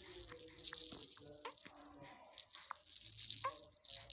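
A baby's rattle toy being shaken in bursts, giving a high jingling rattle, with one short falling squeak from the newborn about three and a half seconds in, likely a hiccup.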